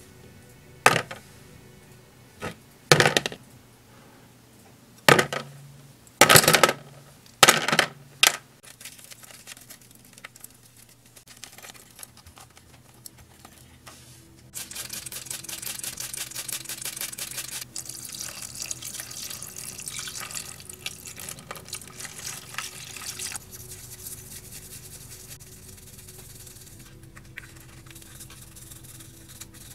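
A few sharp clacks as the small parts of a die-cast model tractor are handled, then water running into a basin of the parts for about nine seconds, followed by quieter sloshing and brush scrubbing in soapy water.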